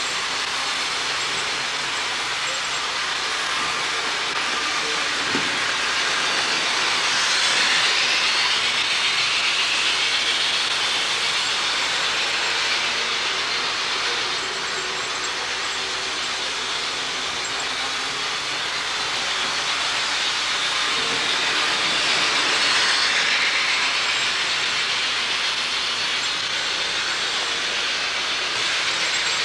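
HO scale model train running on the layout's track, its wheels and motor making a steady whirring rattle that swells twice as the train passes close by.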